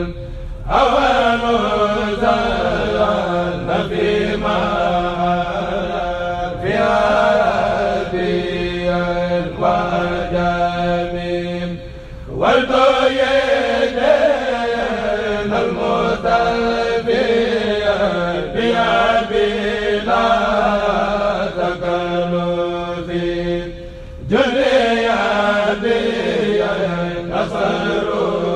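A Mouride kourel chanting a khassida into a microphone, unaccompanied voices in long phrases of about twelve seconds, each followed by a short break for breath.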